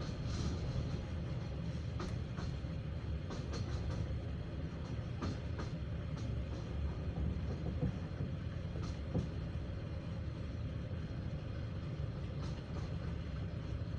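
Passenger train carriage running over the tracks: a steady low rumble of the wheels on the rails, with irregular sharp clicks and knocks as the wheels cross rail joints and points.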